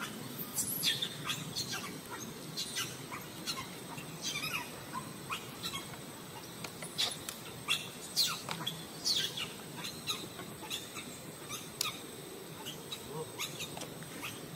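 Scattered short, high-pitched animal chirps and squeaks, some sliding down in pitch, coming in irregular clusters over a faint steady background.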